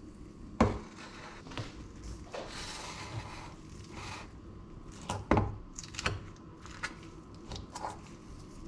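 A fork clinking and scraping against a stainless steel bowl while a salad is tossed, with soft rustling of leaves between the clinks. A sharp metal knock just over half a second in is the loudest, with a cluster of clinks around five to six seconds.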